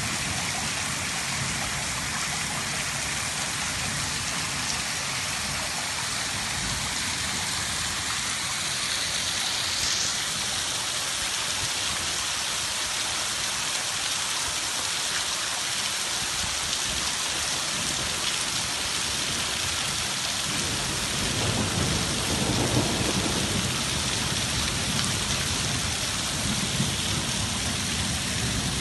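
Heavy downpour in a storm: steady rain hammering on roof tiles and a flooded street. For a few seconds about three-quarters of the way through, a deeper rumble rises under the rain.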